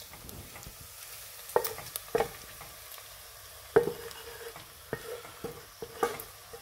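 Browned lamb mince sizzling as it is scraped out of a hot frying pan into a saucepan, with a handful of sharp knocks and scrapes of the utensil against the pan.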